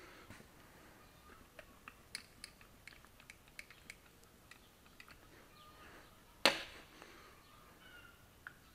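Light clicks and taps of metal engine parts being handled, with one sharp knock about six and a half seconds in, the loudest sound. A bird calls faintly in the background.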